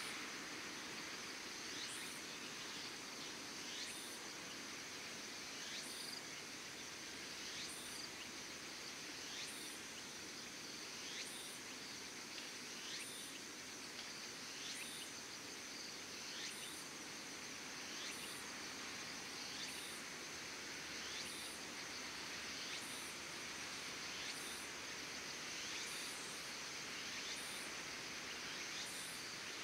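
Evening insect chorus: a steady high trill, with a short rising chirp repeating evenly about every two seconds, over a soft outdoor background hiss.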